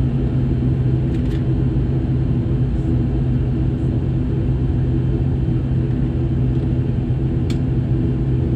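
ATR-42 twin turboprop engines and propellers running steadily at low power as the aircraft taxis, heard from inside the cabin as a constant deep drone with a strong low hum. A couple of faint clicks sound about a second in and near the end.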